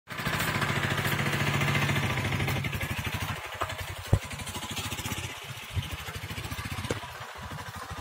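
An engine running with a fast, even pulse, loudest for the first two and a half seconds and then fainter. A few sharp knocks sound over it, the loudest about four seconds in.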